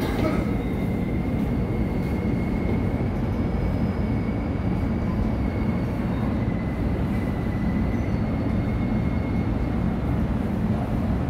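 Seoul Subway Line 1 electric train (set 311x28) pulling into the station. It makes a steady rumble of wheels on rail, with a thin high tone above it that fades out near the end.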